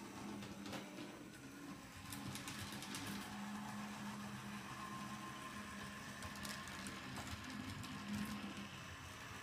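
Two HO scale model streetcars running on DCC track: a steady low hum from their small motors, with scattered clicks of the wheels over rail joints and turnouts, several close together about two to three seconds in.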